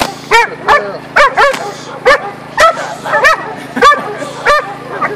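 One-year-old female Belgian Malinois barking repeatedly, about two barks a second, during protection work.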